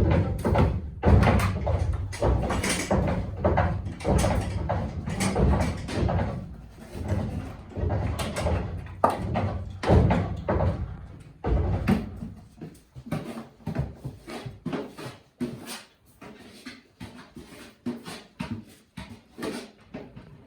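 A goat moving about close to the microphone, with a run of irregular knocks, thumps and clicks that are heavier for about the first twelve seconds, then sparser and quieter.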